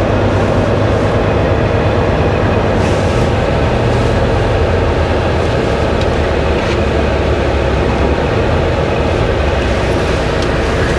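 Semi-truck's diesel engine running, heard from inside the cab: a steady low drone with no change in pace.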